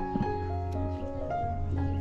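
Background music: a gentle piano-like melody of held notes over a steady bass.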